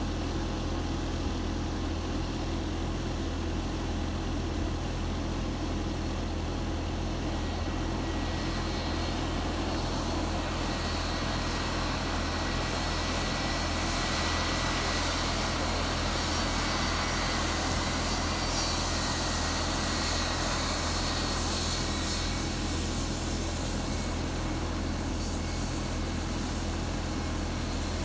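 Boeing 757-200's twin jet engines at high thrust on the runway: a jet roar with a thin high whine swells over several seconds, holds, then fades as the airliner passes.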